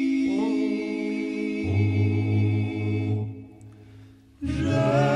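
Music: a Dalmatian klapa, an unaccompanied vocal group, singing a slow song in harmony with long held chords. Deep bass voices join about two seconds in, and there is a short break near four seconds before the next phrase starts.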